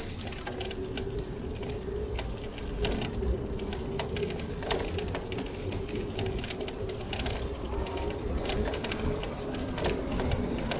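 Riding bicycle heard up close: a steady mechanical hum with irregular rapid ticking and clicking from the bike's moving parts, over a constant low rumble.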